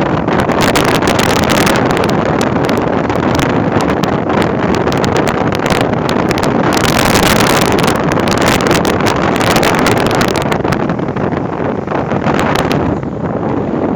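Strong storm wind buffeting the microphone over rough sea surf breaking on the beach, a steady loud rush with gusty spikes. The gusts ease a little near the end.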